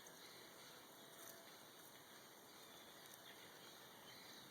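Faint chorus of many wild birds calling, barely above a steady low hiss.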